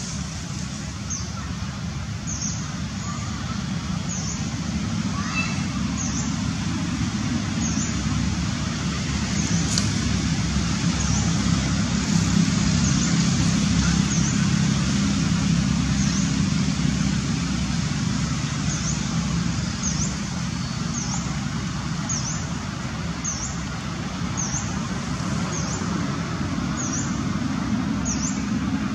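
Steady low outdoor rumble that swells louder toward the middle and eases off again, with a faint short high chirp repeating roughly once a second.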